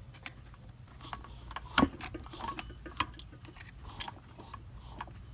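Irregular light clicks and knocks of the disassembled small engine and its metal parts being handled, with one sharper knock about two seconds in, over a low steady hum.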